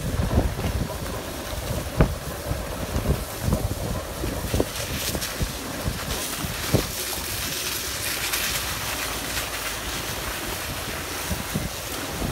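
Wind buffeting the microphone: a steady rushing hiss with a few low thumps in the first seven seconds.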